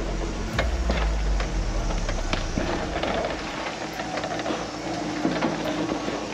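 Toyota pickup truck's engine running at low revs as it crawls down a rocky trail, with its tyres crunching and knocking over stones. The low rumble is strongest in the first couple of seconds.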